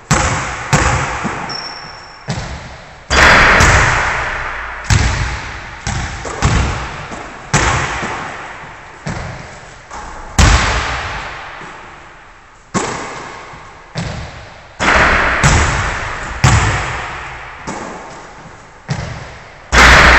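A basketball bouncing and striking hard surfaces in an echoing gym with a wooden floor: a sharp impact every second or two, each ringing out in the hall.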